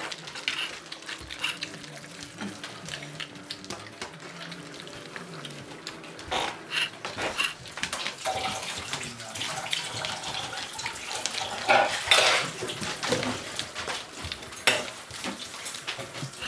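Appenzeller Sennenhund puppies eating dry kibble from a shared plastic tray: a busy run of small clicks, crunches and wet chewing, loudest about twelve seconds in.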